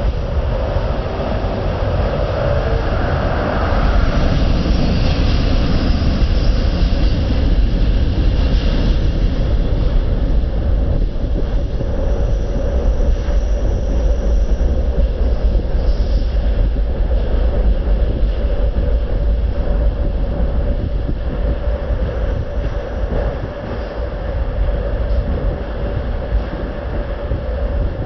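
Steady low rumble of a moving vehicle, with a constant mid-pitched hum.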